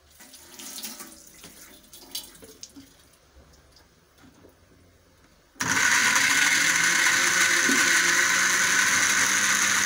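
A few light knocks as the blender jar is handled, then an electric blender switched on about halfway through, its motor running steadily at full speed as it grinds boiled potato and chickpeas into a paste.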